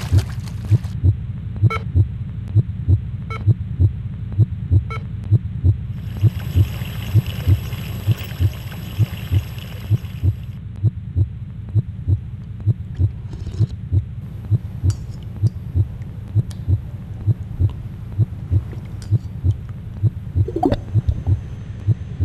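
A steady heartbeat, low muffled thumps at an even pace, over a low hum.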